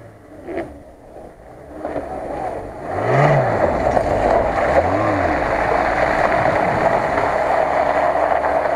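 Lada Niva engine revving up and falling back twice as the SUV drives through mud, under a loud steady rushing noise that sets in about three seconds in.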